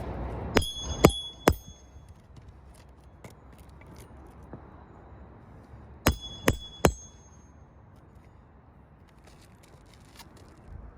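Hammer striking metal with a ringing clink: three blows about half a second apart, then after a pause of about five seconds, three more.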